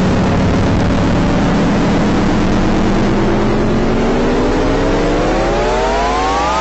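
Eerie 'sound of space' audio: a dense rushing roar with a low steady hum under it and a pitched tone that slowly rises, climbing more steeply over the last couple of seconds.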